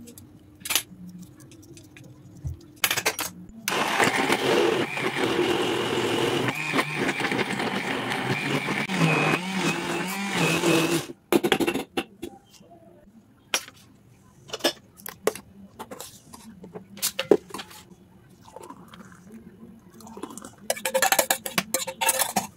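A few sharp taps of a knife chopping almonds on a steel plate, then an electric kitchen blender running for about seven seconds as it blends a milkshake, its motor pitch wavering, before it cuts off suddenly. Scattered clinks of steel vessels follow, with a short noisy rush near the end.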